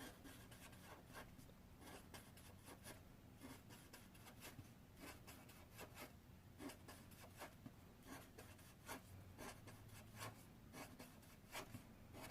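Faint, irregular scratching of a pen or pencil drawing on paper, a string of short strokes as treetops are drawn on a worksheet.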